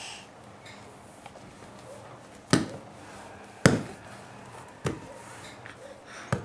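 A baby's hands slapping down on a foam play mat as she crawls: four sharp slaps about a second apart, the second the loudest.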